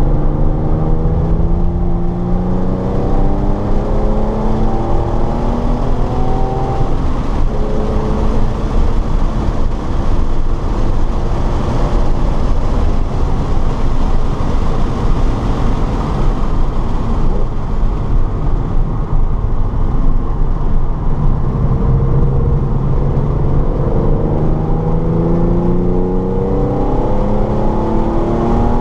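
A car's engine being driven hard on a race track, heard on board: the engine note climbs in pitch in repeated runs as it accelerates through the gears. Midway it gives way to a rushing wind-and-tyre noise with little engine tone, then climbs again near the end.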